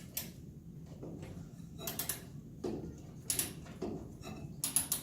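A hand tool working on metal furnace parts: an irregular run of short, sharp metallic clicks and brief scrapes, about half a dozen, as the tool is fitted and turned on a fitting.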